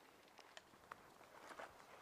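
Faint footsteps and rustling through tall dry grass and brush, with a few soft scattered crunches.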